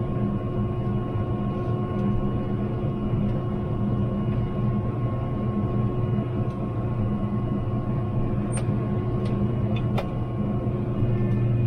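A vehicle engine running steadily at a constant speed, with a few light clicks about two-thirds of the way through.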